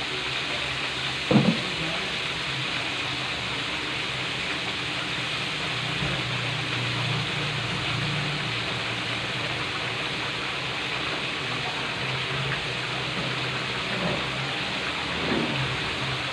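Chicken pieces and kremes batter deep-frying in oil in a wok, with a steady sizzle. A single short, loud knock comes about a second and a half in.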